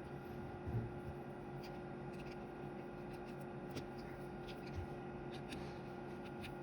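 Faint small clicks and taps of a handheld radio's screws and plastic casing being handled with a screwdriver, with soft thumps about a second in and near five seconds, over a steady low hum.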